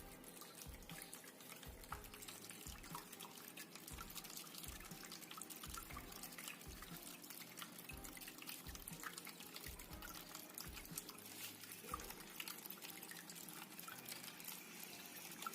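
Faint trickle of water with many small, irregular drips.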